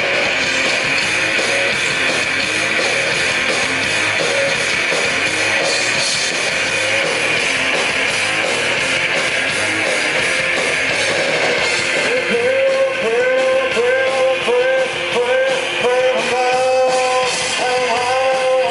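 Live rock band playing loud: distorted electric guitar and drums in a dense wall of sound. About twelve seconds in, a repeating melodic figure comes in over it.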